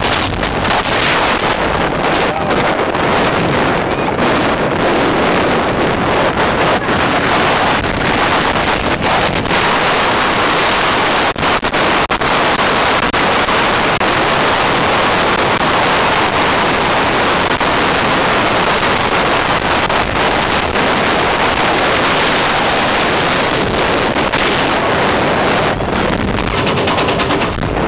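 Heavy wind buffeting on the microphone of a handheld camera riding in the front car of a steel roller coaster at speed. It makes a continuous loud rush, broken by many sharp crackling knocks.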